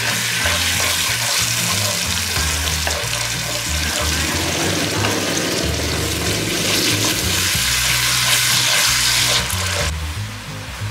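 Chopped tomatoes frying with sautéed onion paste in butter and oil in a pan: a steady sizzle that stops abruptly near the end.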